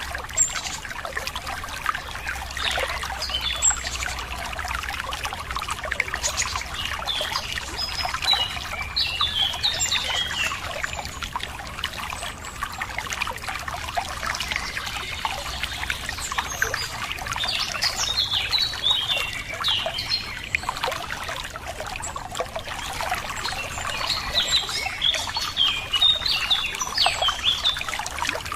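Running water trickling and splashing steadily, with small birds chirping in bursts over it, about a third of the way in, near the middle and again near the end.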